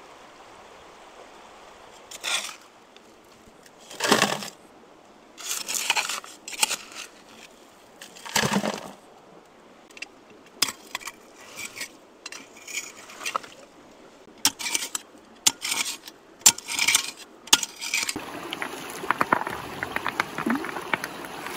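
Digging in river gravel with a hand trowel: metal scraping and stones clinking and grating in irregular strokes, a second or two apart at first and then coming thicker.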